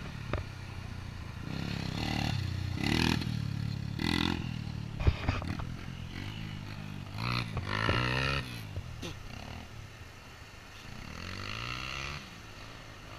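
Engine of a small off-road buggy revving in several bursts, its pitch rising and falling, with a sharp knock about five seconds in.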